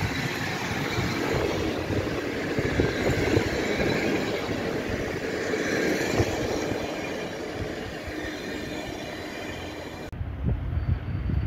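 Intercity passenger coaches rolling past at low speed: a steady rumble of wheels on rail with scattered clicks. About ten seconds in, the sound cuts abruptly to a quieter low rumble.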